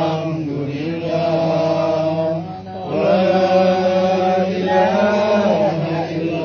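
Male voices chanting Islamic dhikr in long, drawn-out notes, phrase after phrase with short breaks between.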